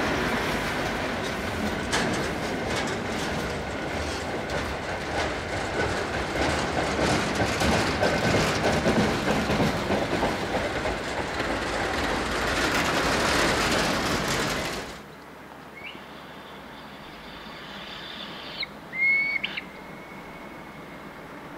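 A steam-hauled freight train of box wagons rolls past close by, its wheels clattering over the rail joints with some squeal. About fifteen seconds in the sound cuts off to a quiet background, broken near the end by a brief loud high-pitched sound.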